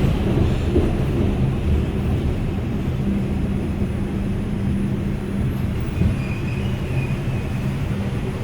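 Steady low hum of an R142 subway car standing at a station between announcements, with a steady low tone running through it.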